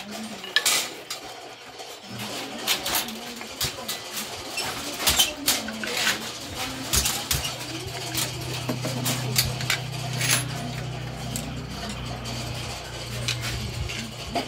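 Hand-worked kente strip loom: irregular wooden clacks and knocks as the shuttle is passed through the warp and the weft is beaten in. A low steady hum starts about two seconds in.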